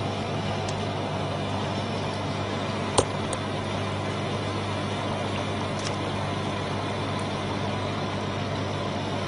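A steady machine hum with hiss, and one sharp click about three seconds in.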